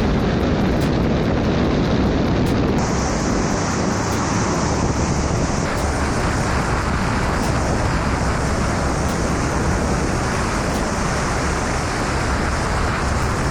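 Loud, steady rushing noise with no clear tone; a higher hiss joins about three seconds in.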